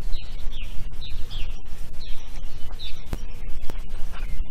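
Wind buffeting the microphone in a steady low rumble with knocks, while a songbird repeats short falling chirps about twice a second.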